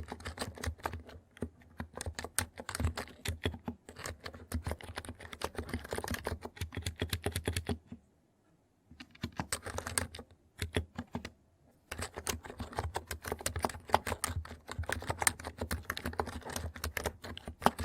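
Typing on a NIZ electro-capacitive (capacitive-switch) keyboard: quick, continuous keystrokes with a soft low thock under each click, breaking off for two short pauses past the middle before resuming.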